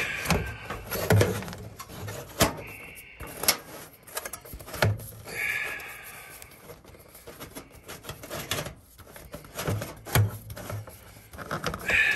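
Galvanized sheet-metal vent pipe being pushed and twisted by hand onto a furnace flue fitting: repeated metal clicks and knocks, with short scraping squeaks of metal on metal about three seconds in, near the middle and again near the end.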